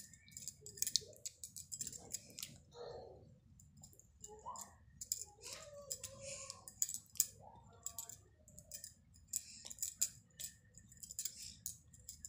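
Rapid, irregular sharp clicks and rubbing from hands and fingers working close to the microphone, with faint voice sounds now and then.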